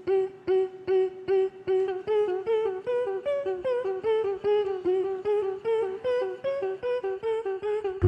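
Rhythmic humming: a steady note pulsed about two and a half times a second, with a tune rising and falling above it.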